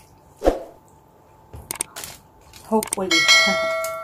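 A bright bell-like chime rings out about three seconds in and fades away slowly: the sound effect of an on-screen subscribe-button and notification-bell animation. Earlier, a single loud thump and a few small clicks.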